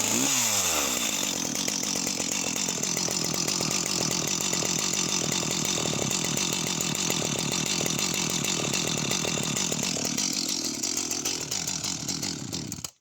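Jonsered 2054 Turbo two-stroke chainsaw running just after a start with choke and throttle lock set. Its pitch falls over the first second as it drops from fast idle to a steady idle, and it cuts off suddenly near the end.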